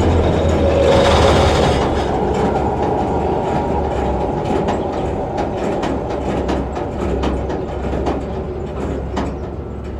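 The Gleaner A66 combine's AGCO Sisu six-cylinder diesel engine running with a steady low drone, joined from about two seconds in by many sharp clicks and rattles.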